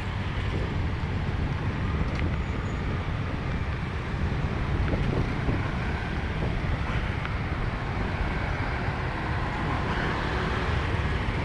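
Steady road traffic: a continuous rumble of passing vehicles with no single standout event.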